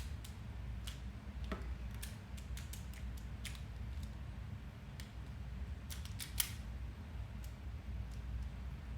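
Plastic speed cube being turned by hand while being solved: irregular sharp clicks as its layers are twisted, one click louder than the rest about two-thirds of the way through.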